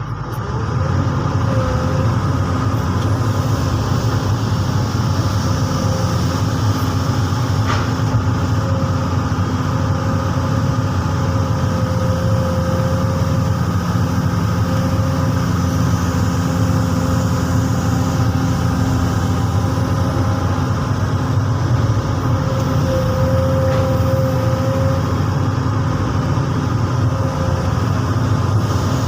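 Komatsu PC200 hydraulic excavator's diesel engine running steadily, with a thin whine above the engine note that swells and fades.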